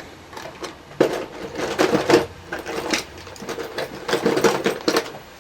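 A small file scraping back and forth on the metal leads of a laptop DC power jack, in a series of strokes about one or two a second. The leads are being roughened so that solder will stick to them.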